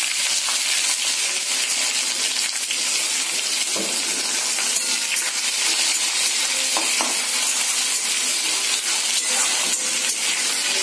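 Finely chopped onion sizzling in hot mustard oil in a kadhai, a steady frying hiss, with a few light metallic clicks of a spoon stirring.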